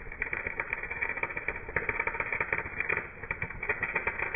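Electric arc welding on rebar, heard slowed down with the slow-motion footage: a dense, rough, irregular crackle with no high end.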